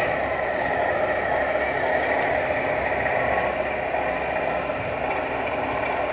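Radio-controlled model heavy-haul truck and its multi-axle low-loader trailer rolling slowly past, with a steady motor and gear whir.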